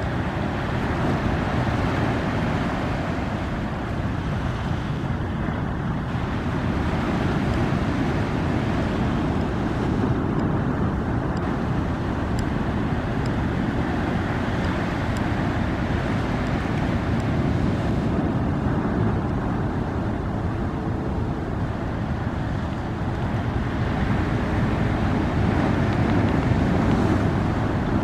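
Steady wash of small ocean waves on a sandy beach, with wind noise on the microphone.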